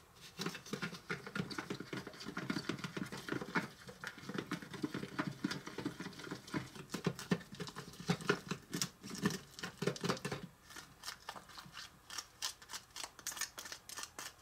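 Small wooden spoon stirring thick chocolate cake batter in a small plastic bowl: rapid, steady scraping and tapping against the bowl, turning to lighter scrapes about ten seconds in.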